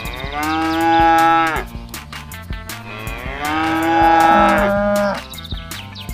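A cow mooing twice, two long drawn-out calls about a second apart.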